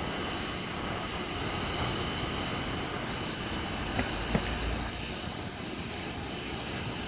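Steady hiss of steam locomotive 3526 blowing off steam, with an Endeavour diesel railcar drawing in alongside. Two short sharp knocks come about four seconds in.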